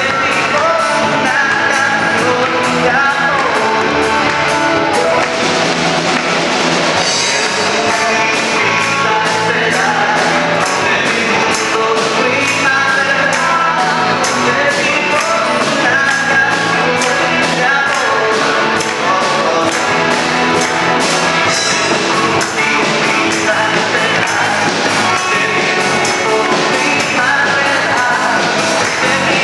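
A live church band playing an upbeat song with guitars, keyboard and a singer, over a steady beat; loud and unbroken throughout.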